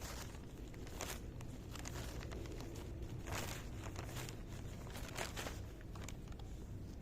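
Hands crumbling bread pieces into homemade fishing bait of bran and wheat flour, giving a few short rustling, crinkling noises about one, three and five seconds in over a steady low rumble.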